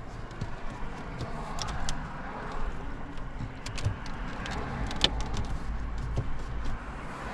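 Plastic dash trim being handled and pressed back into place: scattered sharp clicks and light rattles, the loudest about five seconds in, over a low steady rumble inside the car.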